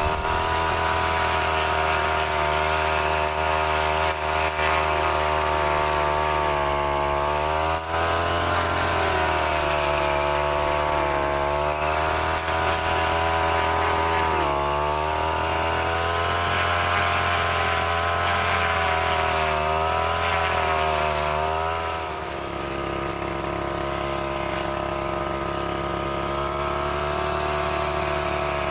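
STIHL FR 3001 two-stroke brush cutter running at high revs, its pitch dipping and recovering every few seconds as the engine takes cutting load from the steel trimmer head. About 22 seconds in it settles to a slightly quieter, steadier pitch.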